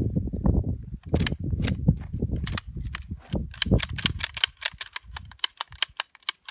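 SKS rifle's action being worked by hand to clear a jam: a quick run of metallic clicks and rattles, packed close together in the second half, with one sharper click at the very end.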